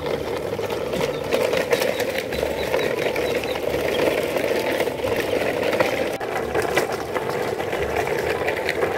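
Steady, rapid mechanical rattling rumble as a convoy of plastic toy trucks moves along dirt ground.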